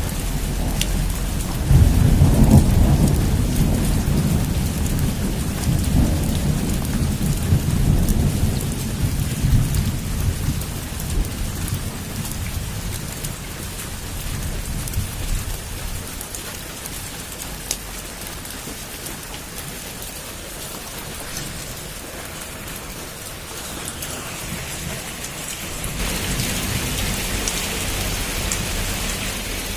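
Heavy rain falling on a roof in a steady hiss, with a long low rumble of thunder starting about two seconds in and fading away over the next dozen seconds. Near the end the rain grows suddenly louder.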